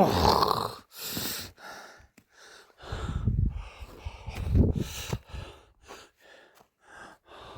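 A person breathing hard and gasping in a string of short, ragged breaths, with two louder low rumbles about three and four and a half seconds in.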